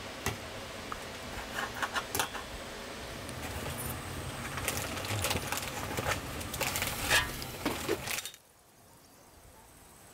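Scattered light clinks and clatter of dishes and metal utensils being handled. It stops abruptly about eight seconds in, leaving only a faint steady hiss.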